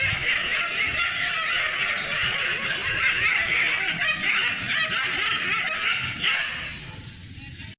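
Dogs fighting: a dense, unbroken din of dog noise that fades out over the last second or so.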